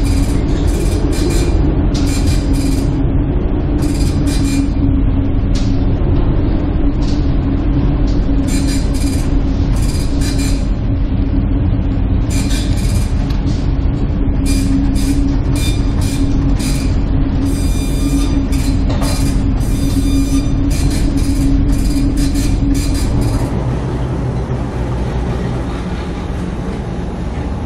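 Noise aboard a container ship pitching in a storm: a loud, steady low rumble with a constant drone and repeated rattling strokes. A little over twenty seconds in, it changes to a thinner, quieter rumble.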